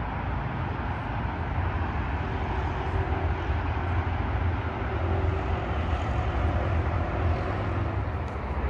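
Steady city street traffic noise: a continuous rumble of passing vehicles, with a faint steady engine-like hum through the middle.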